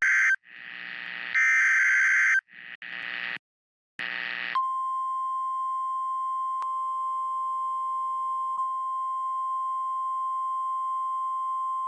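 NOAA Weather Radio emergency alert signal: the tail of the SAME digital header, short warbling data bursts with hiss between them, then about four and a half seconds in the steady 1050 Hz warning alarm tone starts and holds, marking a warning broadcast.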